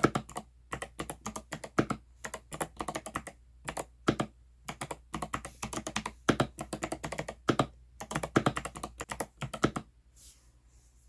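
Typing on an 8BitDo mechanical keyboard, Xbox edition: quick runs of key clicks broken by short pauses, stopping near the end.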